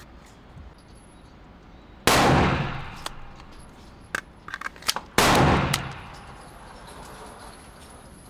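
Two gunshots about three seconds apart, each followed by a long echoing decay, with a few lighter sharp clicks between them.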